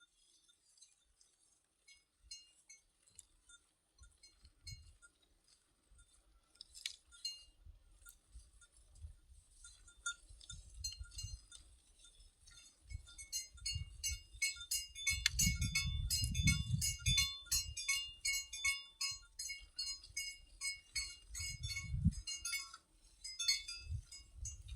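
Metal cowbells on grazing cattle clinking irregularly. They are sparse at first and grow much louder and busier from about halfway, with some low rumbles underneath.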